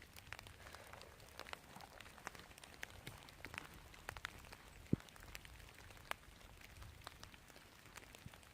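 Light rain: scattered raindrops pattering at irregular times, with one louder tap about five seconds in.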